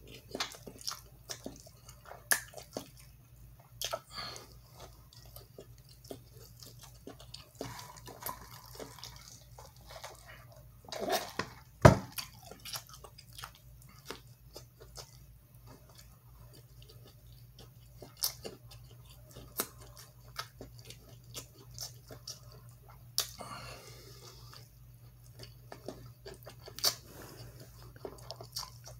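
Close-up wet chewing and biting of a loaded corn dog with cheese, jalapeños and fries: many quick mouth smacks and clicks over a steady low hum. A single sharp knock about twelve seconds in is the loudest sound.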